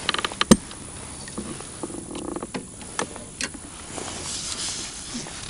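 Handling noises of a freshly landed crucian carp: a quick run of rapid ticks, a sharp knock about half a second in, a few scattered clicks and light rustling.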